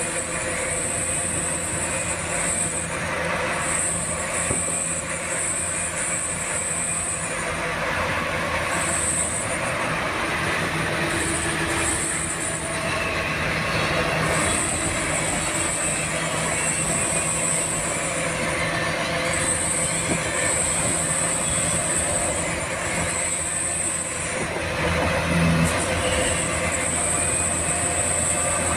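Battery-powered toy vehicles running: a steady mechanical whirr with a high squeal that comes and goes.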